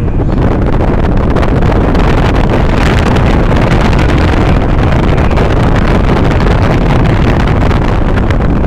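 Steady rush of wind on the microphone together with road and tyre noise from a moving car, heard from inside the car by its side window.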